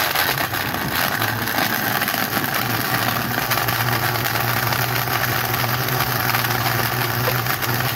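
Countertop blender motor running steadily at full speed, blending a milkshake of milk, ice cream and chocolate.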